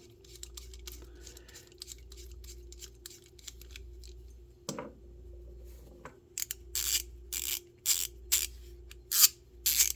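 Fine-tooth (90-tooth) ratchet being worked back and forth, its pawl clicking over the gear in short rasping bursts about twice a second, after several seconds of faint handling ticks.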